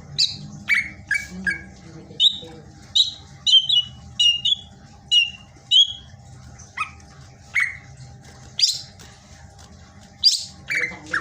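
Cucak ijo (green leafbird) singing hard: a lively string of short, sharp chirps and whistled notes, some sweeping down in pitch, about two a second with brief gaps.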